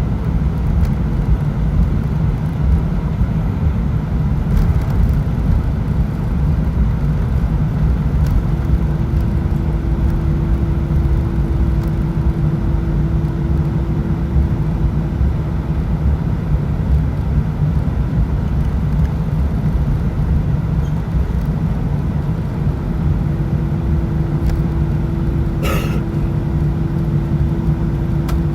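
Cabin noise of an Airbus A319 on the ground with its engines running at low power while taxiing: a steady, even rumble. A faint steady hum comes in twice, and a single click sounds near the end.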